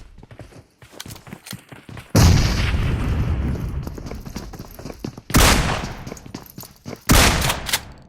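Three sudden loud bangs, the first about two seconds in with a long low rumbling fade, then two more a few seconds apart. Faint scattered clicks come before the first bang.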